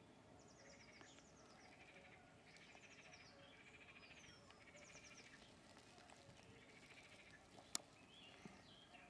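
Faint birdsong: several birds singing, with quick high trills and short falling whistles repeating every second or so. There is a single sharp click near the end.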